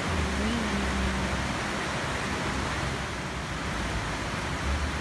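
Steady hiss of falling rain. A low engine hum of passing traffic sits underneath during the first second and a half and again near the end.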